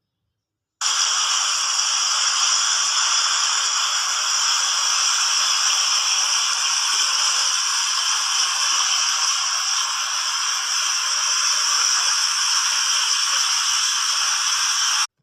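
Public water fountain spraying and splashing in a steady hiss of falling water, starting abruptly after about a second of silence and cutting off just before the end.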